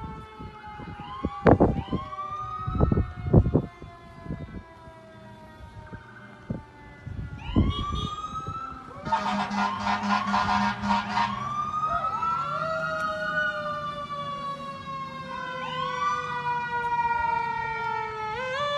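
Several emergency-vehicle sirens sound together from a procession that includes fire trucks. Their pitches fall slowly and sweep back up again and again, growing louder toward the end. A horn blares for about two seconds about nine seconds in, and a few thumps come in the first few seconds.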